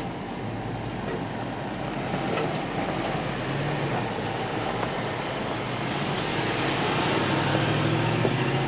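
2010 Range Rover driving slowly over a dirt and rock off-road track, its engine running at low speed, with a few light clicks from the surface. The sound grows gradually louder as the vehicle draws near.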